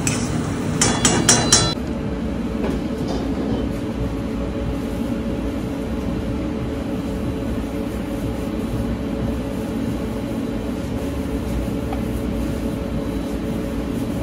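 A few quick metallic clinks of a utensil against a metal pan about a second in, then a steady mechanical hum of commercial kitchen ventilation.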